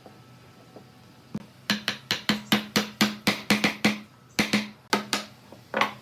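Hammer blows on a wooden chair frame, knocking a freshly glued mortise-and-tenon joint together: a quick run of sharp knocks, about four or five a second, a short pause, then a few more.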